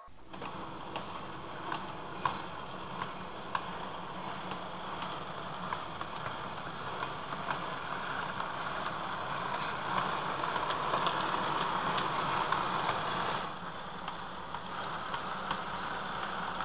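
Model train running along the track: a steady motor and wheel rumble with scattered sharp clicks, growing louder and then dropping abruptly a few seconds before the end.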